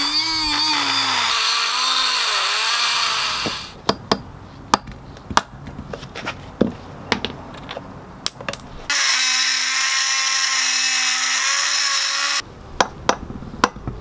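Small rotary tool with a cut-off wheel cutting into the tabs on a Getrag transmission case: a high whine with gritty cutting noise, its pitch wavering and dipping as the disc bites. It cuts out after a few seconds and runs again near the end, steadier, for about three seconds. Light clicks and taps come in between.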